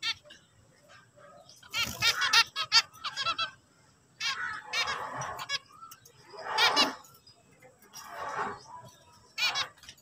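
Zebra finches singing and calling: about five bursts of quick, repeated pitched notes separated by short pauses.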